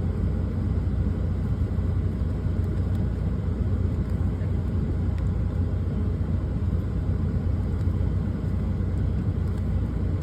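Steady low rumble of a truck heard from inside its cab, with a few faint clicks over it.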